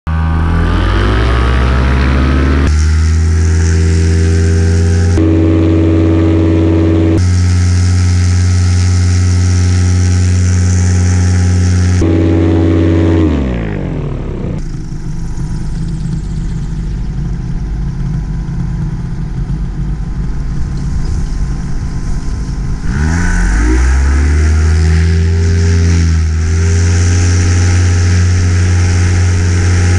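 Miniplane paramotor's Top 80 two-stroke single-cylinder engine and propeller running at high throttle, with the pitch jumping abruptly a few times. About halfway through it is throttled back to a low pulsing idle, then opened up again near the end.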